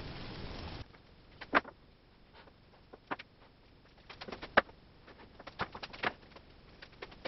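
Scattered light knocks and clicks, about a dozen in all, from someone moving about a workshop and handling things; the loudest come about one and a half and four and a half seconds in. A steady hiss stops abruptly about a second in.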